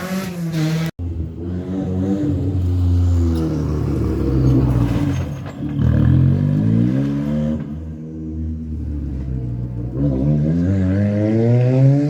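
Rally car engine accelerating hard, its pitch climbing and dropping again and again as it changes gear. It cuts off abruptly about a second in and comes straight back.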